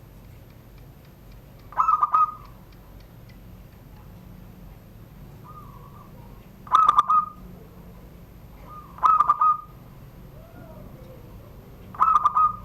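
Perkutut (zebra dove) cooing its 'manggung' song in the 'surung gdor' style: four short, loud coo phrases a few seconds apart, with a couple of fainter notes between them.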